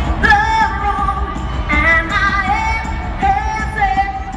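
A singer performing a freestyle dance-pop song live over an amplified backing track, holding long sung notes over a steady bass beat, heard through the venue's sound system from the audience.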